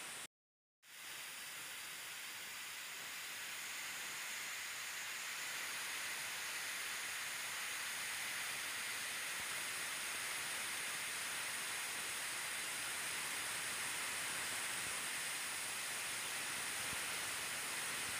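A steady hiss with no other sound, broken by a brief dropout to total silence about half a second in.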